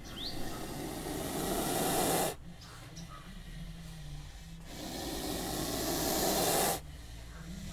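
A snake hissing in two long breaths, each swelling louder for about two seconds and then cutting off sharply, with a short pause between them.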